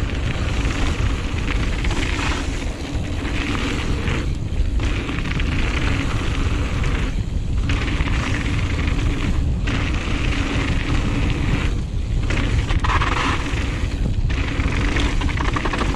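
Wind buffeting a GoPro's microphone with a steady low rumble, over the hiss of mountain bike tyres rolling fast on a dirt flow trail. The tyre hiss drops out briefly every few seconds.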